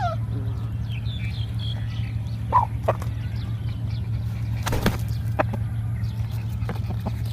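Birds giving a few short chirps over a steady low hum, with a sharp click about two-thirds of the way through.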